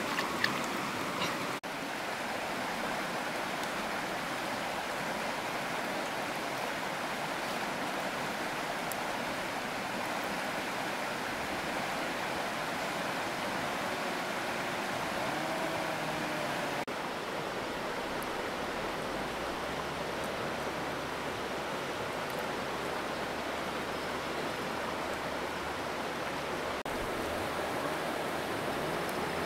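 Steady rush of flowing water, broken off abruptly a few times by cuts.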